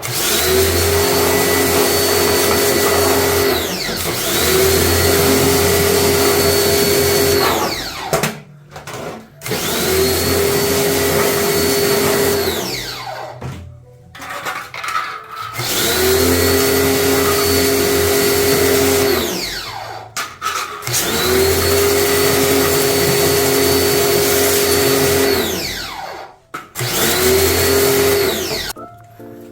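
A small electric motor switched on and off in runs of a few seconds, about six times. Each run rises to a steady whine and winds down with a falling pitch when it stops.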